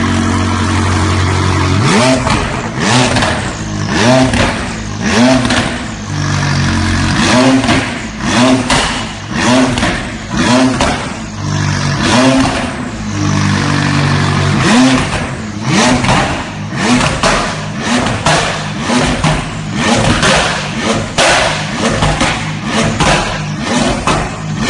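Engine with a loud exhaust idling briefly, then blipped in quick short revs about once a second, each rev rising and dropping back. Sharp pops and crackles come from the exhaust as the revs fall.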